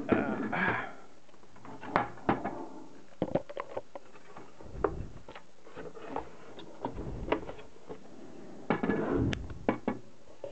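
Handling noise from an opened bench multimeter: scattered light clicks and knocks, with short stretches of scraping and rustling, as its metal chassis and plastic case are lifted and turned over by hand.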